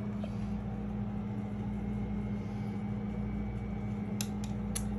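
A steady low machine hum, with a few short faint clicks about four seconds in.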